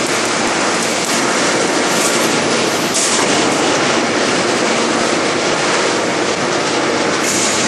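Loud, steady mechanical clatter and rumble of a 5000-tonne hydraulic open-die forging press and its machinery at work, with brief hisses about two, three and seven seconds in.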